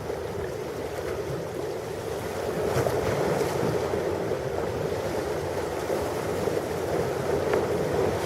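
Ocean surf, a steady rushing wash of waves that swells slightly about three seconds in.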